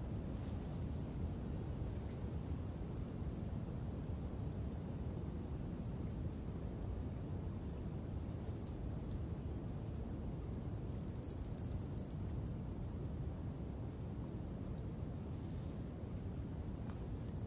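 Insects, crickets or similar, chirring steadily in two unbroken high-pitched tones over a constant low rumble.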